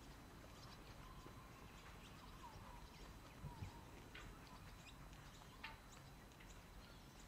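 Near silence with faint scattered bird chirps and calls over a low steady rumble. Soft footstep thumps come about three and a half seconds in and again near six seconds.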